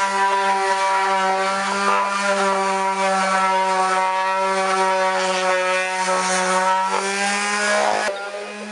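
A motor running steadily at one constant pitch, a droning whine that drops in level near the end.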